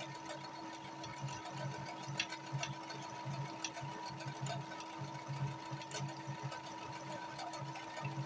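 Brother computerized sewing machine stitching a programmed sequence of letters: a steady motor hum with the needle's chatter, pulsing unevenly as it works through the letter shapes, with occasional light clicks.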